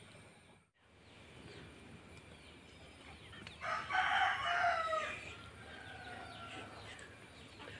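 A rooster crowing once, about three and a half seconds in, lasting about a second and a half and dropping in pitch at the end.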